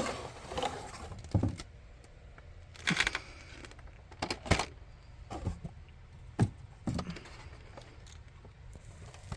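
Packaging being handled and pulled open by hand: irregular clicks and knocks of cardboard and plastic, with brief rustling, the longest about three seconds in.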